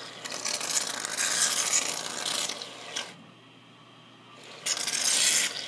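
Aerosol can of shaving foam spraying: a hiss for about three seconds, then a second, shorter spray near the end.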